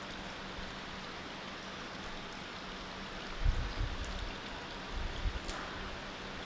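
Steady background hiss with a faint low hum, broken by a few dull low thumps about three and a half and five seconds in.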